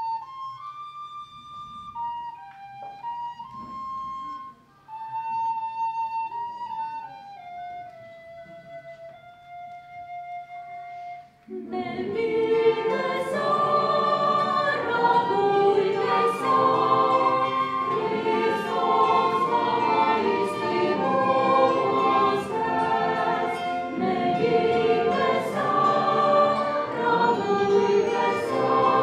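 A single melody line sings out alone in slow, held notes, then about twelve seconds in a choir of many voices comes in, singing a chant in harmony, much fuller and louder.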